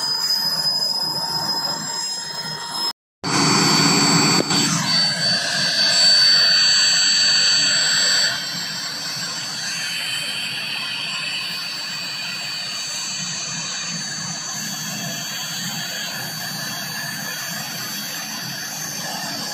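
Turbine engine of a military light helicopter running on the ground: a steady high whine over a broad rushing noise. A brief dropout about three seconds in; louder for about the next five seconds, then steady.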